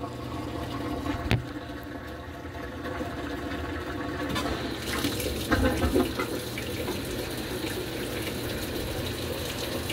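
Washing machine on its clean washer cycle with water running into the drum, over a steady low hum. There is a sharp click about a second in, and the rush of water grows stronger a little before the halfway point. The machine has skipped the mid-cycle spin and gone straight to the rinse.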